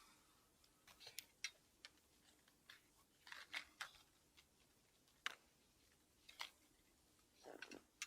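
Irregular light clicks and taps of small metal parts being handled while the cutting blades on a 130 mm hand ice auger are swapped, with a short scraping rustle near the end.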